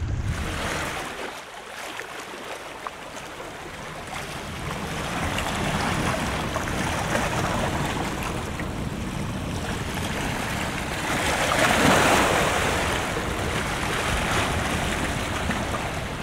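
Sea waves washing against a concrete seawall, a steady surge that swells to its loudest about twelve seconds in, with wind buffeting the microphone.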